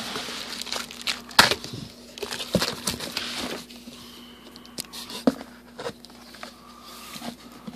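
Cardboard shipping case being pulled open by hand: flaps and packing tape tearing, rustling and scraping, busiest in the first few seconds, then a few scattered knocks as the flaps settle.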